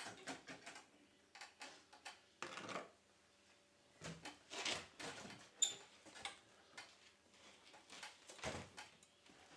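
Scattered clicks, knocks and clunks from a lawn mower being handled and tipped onto its side, with a few louder short bumps spread through.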